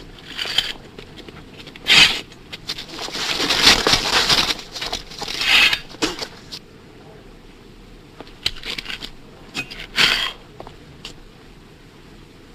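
Scuffling and shuffling of a group of men moving together, in several short noisy bursts, the longest lasting about three seconds.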